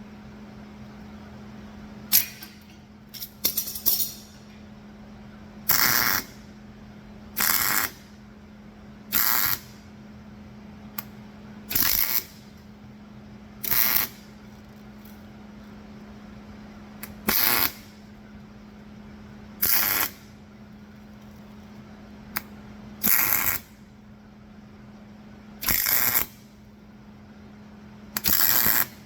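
Arc welder laying a series of short tack welds on steel angle iron, each a crackling burst of about half a second, about a dozen over the stretch with pauses of two to three seconds between them, over a steady low hum.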